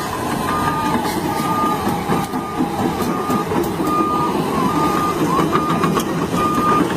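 A vehicle's warning beeper sounding a single high tone on and off at an even rate, a little more than one beep a second, over the steady running noise of a heavy vehicle's engine.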